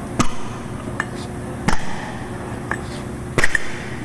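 Tire hammer striking a forklift tire at its two-piece split rim to break the bead loose: three heavy, ringing metallic blows about a second and a half apart, with lighter knocks between them.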